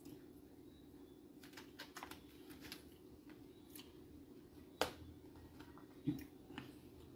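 Quiet eating sounds: light clicks of chewing and a metal fork tapping and scraping in a foil cake pan, with one sharper click a little before five seconds in and another about a second later.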